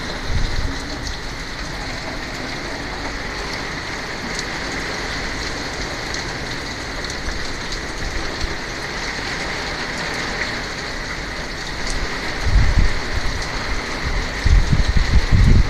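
Steady heavy rain from a hurricane. About twelve seconds in, gusts of wind start buffeting the microphone in rough, low rumbles.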